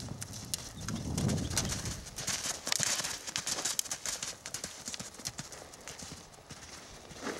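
Hoofbeats of a horse cantering on a sand arena and over a jump, a quick run of dull strikes that grows fainter near the end as the horse moves away.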